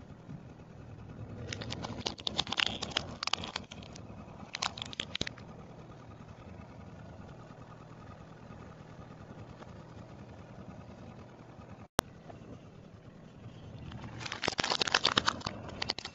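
Small plastic toys cracking and crunching under a slowly rolling car tyre: bouts of rapid, sharp snapping about two seconds in and again about fourteen seconds in, over the low steady sound of the car.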